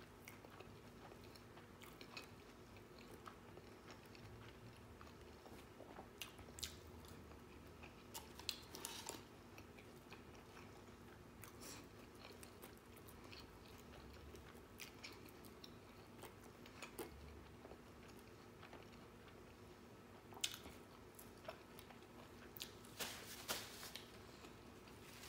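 Quiet chewing and biting of a bacon cheeseburger, with scattered short crunchy clicks: one cluster about a third of the way in and another near the end.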